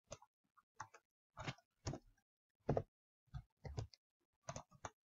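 Computer mouse and keyboard clicks: about ten sharp, irregularly spaced clicks, some in quick pairs, with silence between them.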